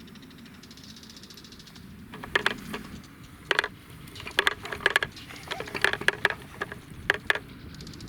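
Wooden push-along baby walker clacking and rattling as it is pushed: its moving chick toy and wheels give a string of irregular wooden clacks that start about two seconds in.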